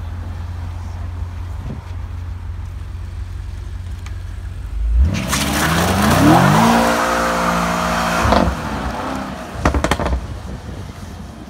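BMW sports sedan pulling out under hard throttle: after a low idle rumble, the engine note rises sharply about five seconds in and stays loud for about three seconds, then cuts off abruptly. A few sharp exhaust pops follow.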